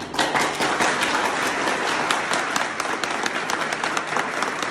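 A group of people applauding: many hands clapping together, dense and steady.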